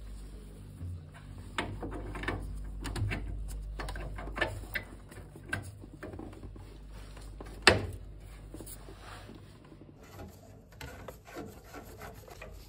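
Gloved hands pushing a new boiler pressure relief valve into its brass housing: rubbing and scraping with scattered clicks and knocks of metal parts, the loudest a single sharp knock about two-thirds of the way through.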